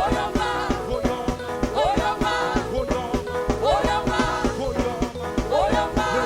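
Live gospel praise music: a band playing a steady, danceable beat with a voice singing over it.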